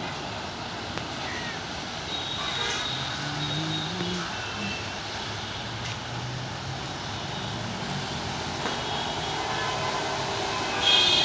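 Steady engine noise with a low drone, growing louder near the end as a high-pitched whine comes in.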